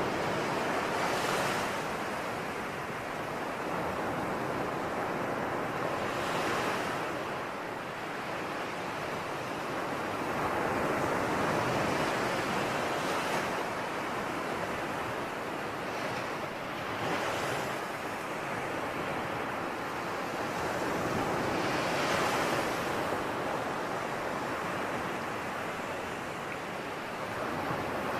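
Sea waves washing onto a shore: a steady rush of surf with a wave swelling and breaking about every five seconds.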